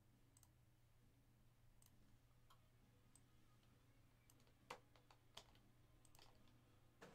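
Near silence broken by faint, scattered clicks of a computer mouse, about ten of them at uneven spacing, the loudest a little after the middle, over a low steady hum.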